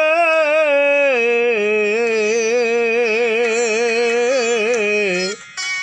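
A voice singing a Sikh devotional hymn (shabad), holding one long ornamented note on the end of a line. The note steps down in pitch about a second and a half in, keeps wavering, and stops shortly before the end.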